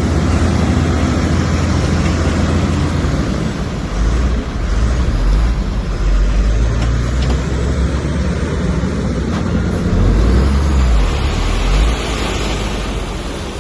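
Diesel engine of a Komatsu bulldozer running at work, a low drone that swells and eases, with a hiss rising over it near the end.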